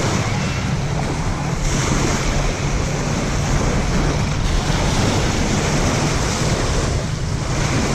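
Steady wind buffeting the microphone, with a rumbling rush over lake water lapping and washing.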